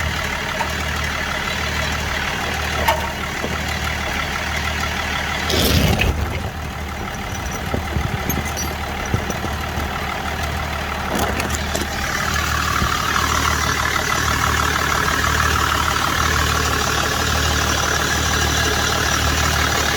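BMW E39 engine idling steadily. There is one knock about six seconds in, and a steady hiss joins the idle about twelve seconds in.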